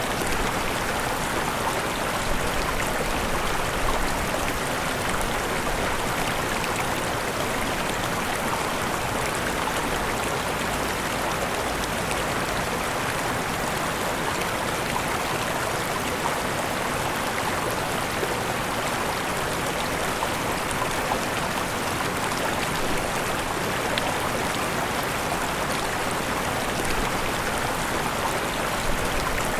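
Steady rushing of falling and flowing water from a waterfall, an even wash of sound with no breaks.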